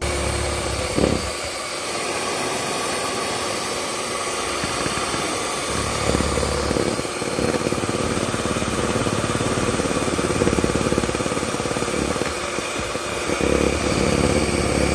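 Electric mixer running steadily, whipping cream for a cake.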